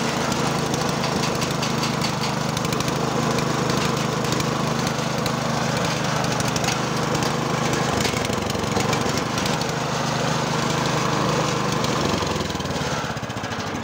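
Small single-cylinder petrol engine running steadily at speed, driving a belt-driven grass chopper. The sound eases off in the last second.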